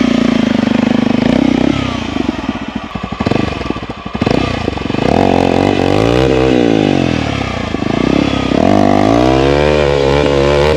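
Off-road motorcycle engine at high revs, then a rougher, uneven patch, then two long stretches of revving up and down again and again as the bike fights for grip on a slippery climb.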